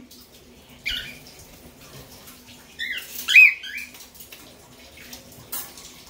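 Cockatiel calling: one short chirp about a second in, then a quick run of rising and falling chirps near the middle, the last of them the loudest, over a faint steady hum.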